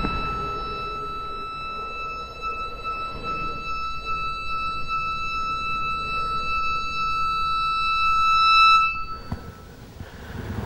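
A steady, high-pitched tone with a faintly alarm-like ring, held for about nine seconds over soft low music, growing louder just before it cuts off suddenly.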